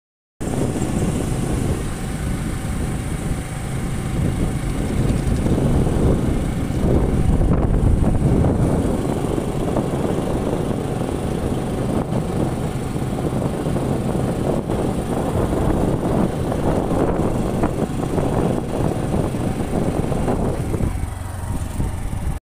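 A motorcycle riding along a road: steady engine noise mixed with wind rushing over the microphone. It cuts off suddenly near the end.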